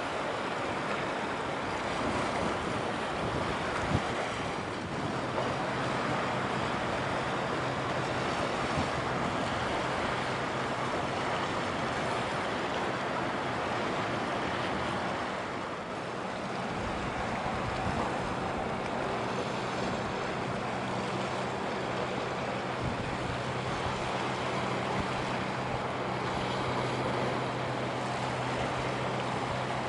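Steady wash of wind and water along the shore, with a low, steady engine hum from the passing RORO cargo ship coming in about five seconds in.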